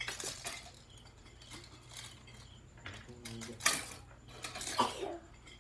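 Small wooden pieces and hand tools being handled on a tiled floor: scattered clicks and knocks, the two loudest a little past halfway and about a second later.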